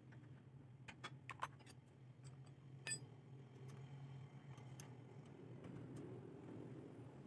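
Faint, sparse metal clicks and taps from a hand tool handled on a small generator engine: a few about a second in and a sharper one near three seconds. A low steady hum sits underneath and fades about halfway through.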